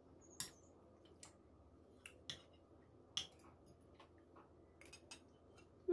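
Faint, irregular light clicks of cutlery against a plate during eating, about half a dozen sharp ticks spread over several seconds, the loudest about three seconds in.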